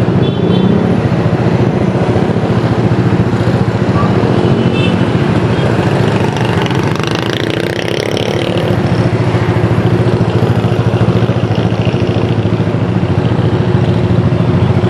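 Motorcycle engine running steadily while riding, mixed with a constant rush of road and wind noise.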